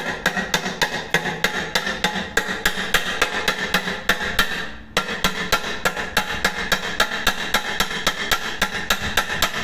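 Hammer striking a riveting set held on a rivet of an aluminum pressure cooker's handle bracket, setting the rivet with rapid, evenly spaced metallic blows, about four a second, pausing briefly about five seconds in.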